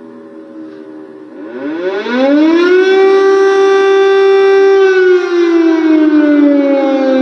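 Air-raid warning siren wailing. About a second and a half in, it swells up in pitch and loudness from a faint tail, holds one steady tone, then slowly slides down in pitch near the end.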